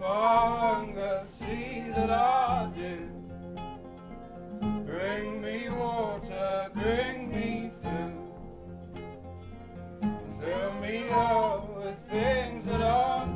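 Acoustic folk band playing live: strummed acoustic guitars, double bass and fiddle, with male and female voices singing together. The singing comes in three phrases of a few seconds each, with short instrumental stretches between them.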